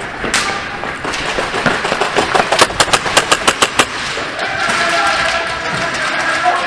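Airsoft guns firing: a quick run of sharp snaps, about four or five a second, in the middle of the stretch.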